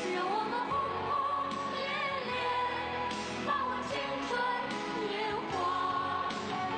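A Chinese song: singing over instrumental backing music.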